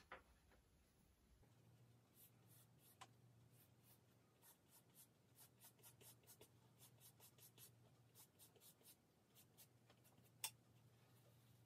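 Faint, quick strokes of vine charcoal scratching across drawing paper, a few strokes a second, with one sharper tick near the end.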